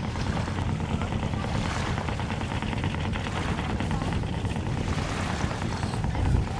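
Gusty wind buffeting the microphone ahead of an approaching thunderstorm: a steady rushing noise with a heavy, uneven low rumble that swells briefly near the end.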